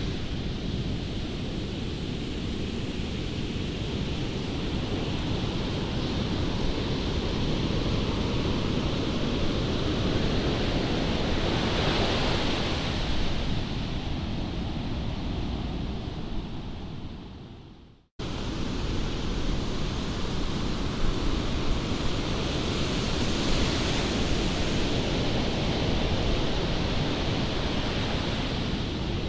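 Strong wind buffeting the microphone over the rush of breaking surf, rising and falling in broad swells. About two-thirds of the way through it fades out to silence and cuts straight back in.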